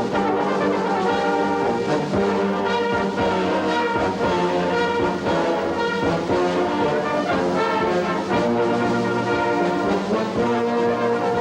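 Background music played by brass instruments: a band of sustained, changing chords.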